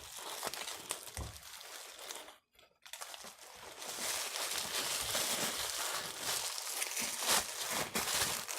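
Plastic packaging crinkling and rustling as a small speaker is unwrapped, with a brief pause about two and a half seconds in and steadier rustling after that.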